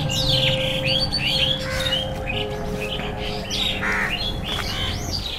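Many birds chirping and squawking in rapid, overlapping calls, over a steady low hum of held tones that cuts off near the end.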